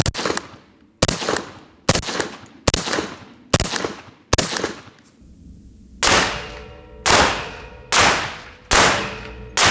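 Semi-automatic rifle fired in a steady string of single shots at close range, about one shot a second: six shots, a short break, then five more. After each of the last five shots a metallic ring lingers.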